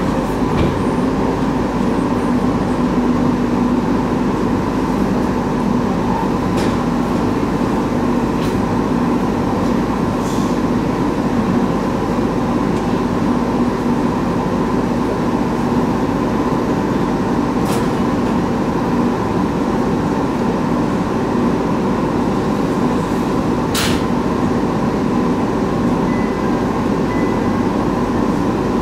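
Steady hum and rumble inside the carriage of a JR East 701 series electric train, with a few sharp clicks and knocks spaced several seconds apart.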